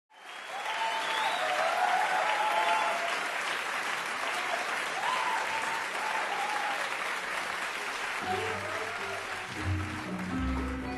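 Audience applause with a few whoops. About eight seconds in, the ensemble starts playing, with low held notes rising over the fading applause.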